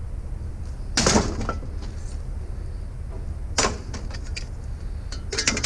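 Vehicle engine running with a low steady rumble, broken by a loud sharp clatter about a second in, another knock a few seconds later and a quick run of knocks near the end.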